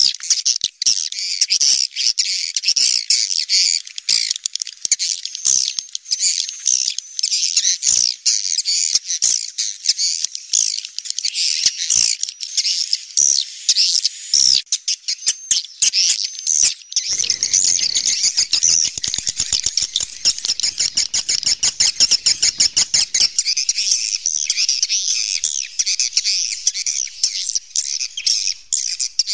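A flock of swiftlets calling: a continuous, dense, high-pitched twittering. For several seconds past the middle a fast run of clicks sounds through the calls.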